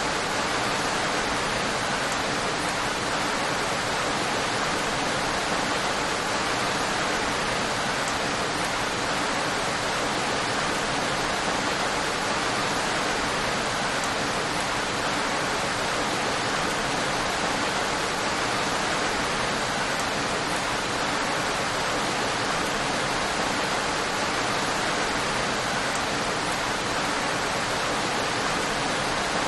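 Steady, unbroken rain with an even hiss and no distinct drops or thunder.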